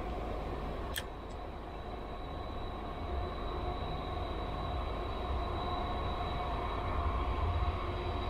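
A steady low rumble with faint steady tones over it, like a distant machine droning, and one sharp click about a second in.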